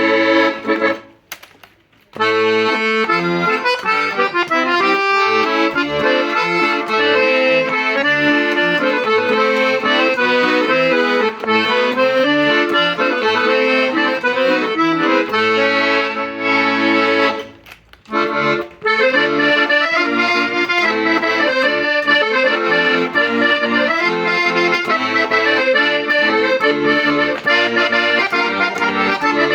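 G. Argentati Italian accordion being played: a melody over held reed chords with a moving bass line. The playing breaks off briefly twice, about a second in and again past the middle.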